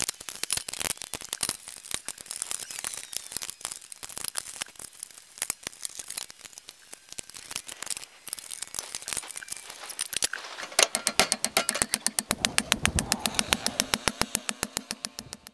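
Metal sub panel cover being handled and fitted: irregular clicks, rattles and knocks. About eleven seconds in, a fast, even run of hammer strikes on a copper ground rod begins.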